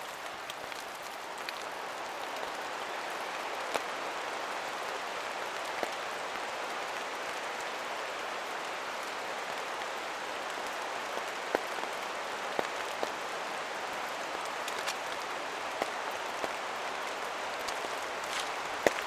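Steady rain falling, an even hiss, with single louder drops landing close by at irregular moments.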